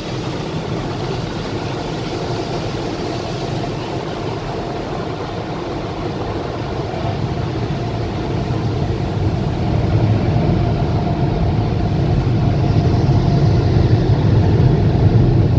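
Automatic car wash heard from inside the car: a steady rush of water spray and machinery, muffled by the car body, growing louder about ten seconds in.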